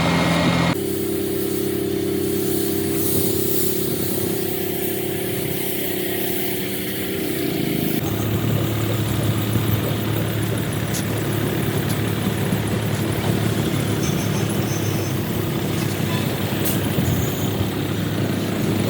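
Heavy road-construction machinery engines running steadily, the hum changing abruptly about a second in and again about eight seconds in.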